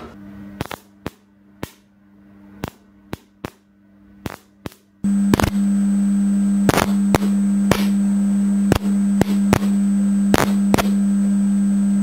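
A 6 kV capacitor bank discharging into two parallel microwave-oven magnetrons: sharp, irregular snaps, about a dozen of them. About five seconds in, a loud steady electrical hum sets in under the snaps.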